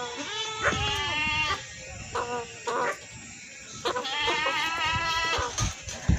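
Goat bleating: several wavering, quavering calls, two long ones with short ones between.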